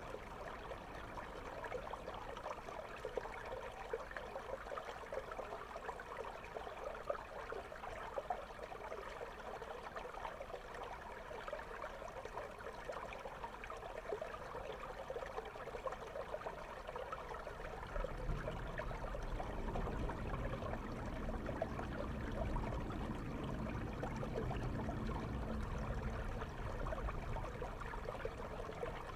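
Shallow river water flowing over stones, heard through a camera submerged in the stream: a steady crackling, fizzing hiss of moving water and bubbles. About eighteen seconds in, a low rumble joins it and stays.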